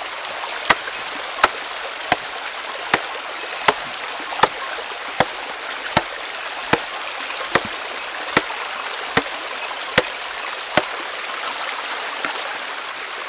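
A hammer striking rock in a steady series of sharp blows, about one every three-quarters of a second, dying away near the end. Under them is the steady rush of running water.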